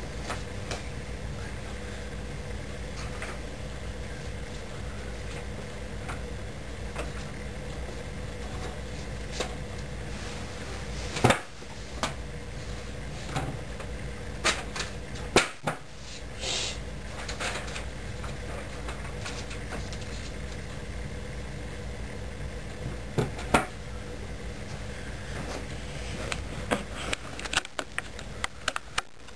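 Steady low hum and hiss of a poor recording, with scattered faint clicks and knocks and a quick run of them near the end.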